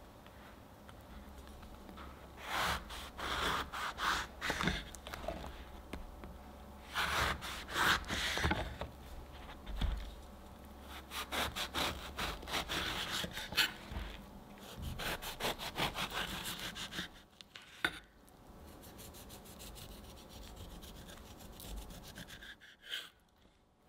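Ceramic knife sawing through thick grapefruit rind and pith on a wooden cutting board, in quick back-and-forth strokes. It comes in four runs of about two seconds each, then a few light clicks.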